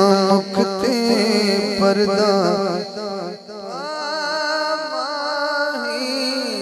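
Male naat reciter singing through a microphone and PA, in wavering, ornamented phrases. About halfway he pauses briefly, then draws out one long note, over a steady low drone.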